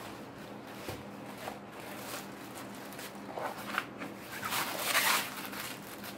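A rolled diamond-painting canvas being unrolled by hand from its plastic wrapping: paper and plastic crinkling and rustling, with louder crinkles about three and a half and five seconds in.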